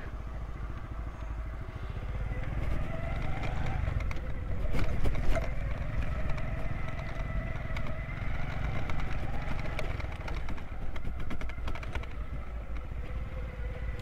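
An engine running steadily, its pitch drifting up and down a little, with scattered light clatter.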